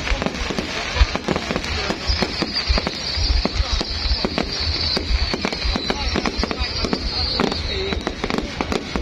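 Fireworks going off thick and fast: a dense run of bangs and cracks with barely a gap. A high hissing tone runs through the middle stretch.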